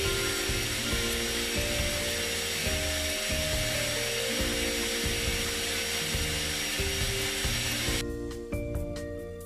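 Stand mixer motor running at high speed, its wire whisk beating egg whites as hot sugar syrup is poured in, under background music. About eight seconds in, the mixer noise cuts off and only the music is left.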